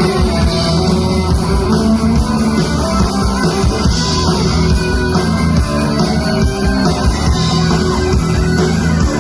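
Rock music played live by a full band: guitars and drums with a steady beat, loud and continuous.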